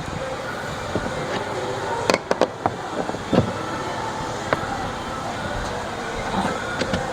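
Steady background noise with a few sharp knocks and clicks, a quick cluster about two seconds in, from plastic massage-jet fittings and pipes being handled and fitted on the bathtub.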